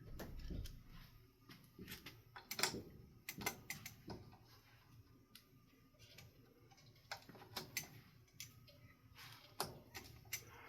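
Faint, irregular clicks and light taps of ceiling fan parts being handled, with blades and screws being fitted to the fan.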